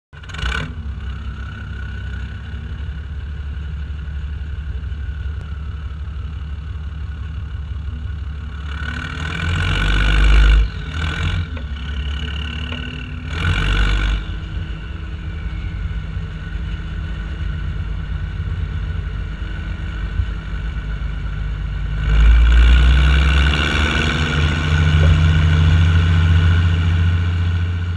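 International Harvester 1455 tractor's diesel engine running as the tractor drives, close to the microphone on the hood. It swells briefly about ten seconds in and again about fourteen seconds in, and runs louder from about twenty-two seconds on.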